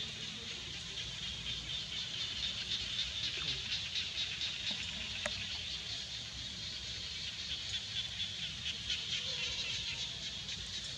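Steady high-pitched chorus of insects, likely cicadas, buzzing with a fast, even pulse.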